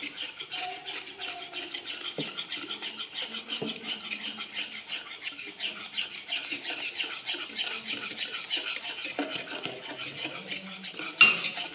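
A wire hand whisk beats wet cake batter in a plastic bowl with a fast, steady swishing and clicking of the wires. A few soft knocks come where the whisk strikes the bowl.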